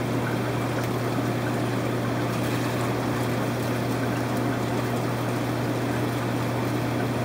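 Steady low hum of aquarium pumps with running water hissing and trickling, unchanging.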